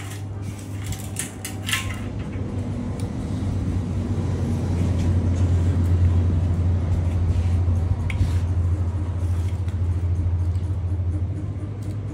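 A loud, low steady hum swells over several seconds and eases again, with a few light metallic clicks from aluminium frame profiles being handled about a second or two in.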